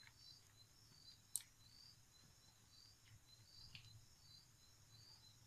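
Near silence: a silicone spatula scraping mango puree out of a bowl, with one sharp tap about a second and a half in and a softer one near four seconds. A faint high chirping repeats about twice a second in the background.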